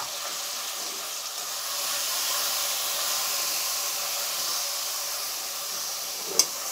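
Spiced minced meat frying in a little hot oil in a pressure-cooker pot, a steady sizzle as it is stirred with a spoon. A single sharp tap near the end.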